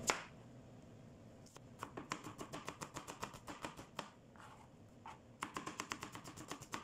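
Kitchen knife slicing red onion on a plastic cutting board: quick, evenly spaced taps of the blade on the board, about six a second, starting after a second or so and stopping briefly in the middle before going on.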